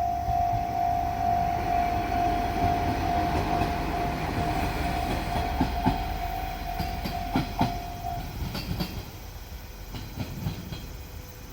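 A diesel train running past over jointed track, its wheels clicking over the rail joints, with a steady high tone that stops about eight seconds in; the sound fades after that.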